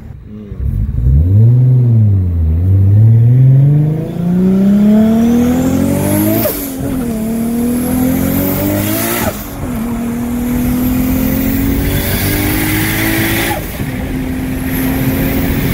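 Tuned Nissan Skyline R34 GT-T's turbocharged straight-six accelerating at full throttle, heard from inside the cabin: the engine note climbs steadily and drops sharply at three upshifts, about six, nine and thirteen and a half seconds in. A faint rising turbo whistle builds before the shifts, with a short rush of noise as each shift lets off.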